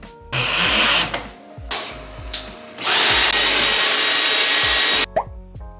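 A cordless drill runs in two short spurts. Then a Dyson cordless stick vacuum, held up to the freshly drilled wall to suck up the dust, runs steadily for about two seconds and cuts off suddenly.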